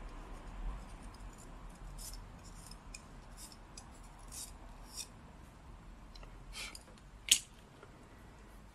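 Craft knife shaving a stick of drawing charcoal to a slanted point: a series of short, dry scraping strokes, then one sharp click near the end.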